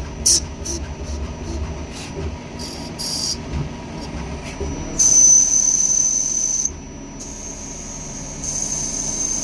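CNC machine running with a steady high-pitched whine and hissing. The hiss swells loud for about two seconds midway and again near the end.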